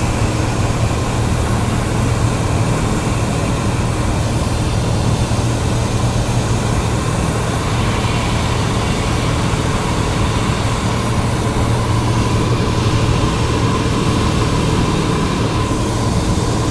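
Cessna 172's piston engine and two-blade propeller droning steadily in flight, heard from inside the cabin: a strong low hum with a faint steady whine above it.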